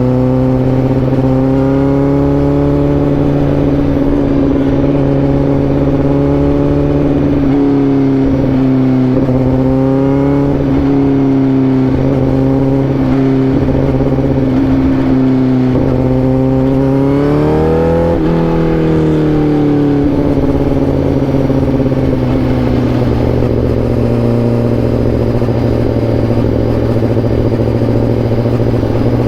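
Honda CBR1000RR-R SP's inline-four engine running steadily under way, its note wavering slightly at times. It rises briefly in pitch and then falls back about two-thirds of the way through.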